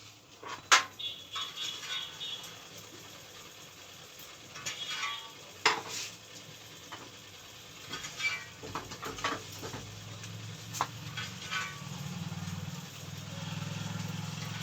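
Scattered metallic clinks and knocks from handling a ceiling fan machine, with a low steady motor hum that comes up from about nine seconds in.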